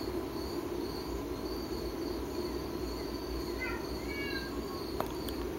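Steady high-pitched chirping, about two chirps a second, like an insect, over a low steady room hum. A few short, soft whistled notes come about four seconds in.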